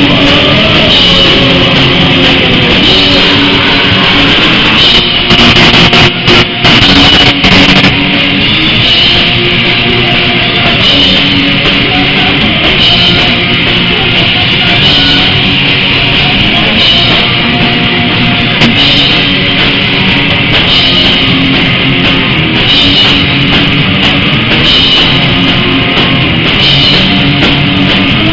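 A rock band playing live: electric guitar and drum kit, loud and dense, briefly cutting out a few times about six seconds in.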